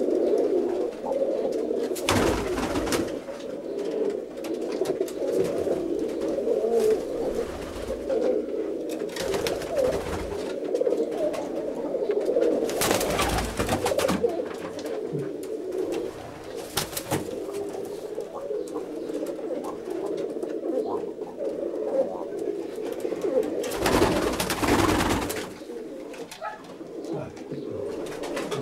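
Domestic roller pigeons cooing continuously in a small loft, several voices overlapping into a steady murmur. A few short, louder noises break in: about two seconds in, around the middle and near the end.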